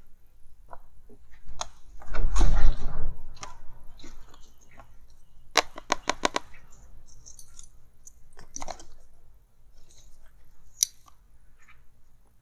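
Hands handling cardboard boxes and packaging up close: scattered taps and clicks, and a loud rustle about two seconds in. A quick run of about six clicks follows near the middle.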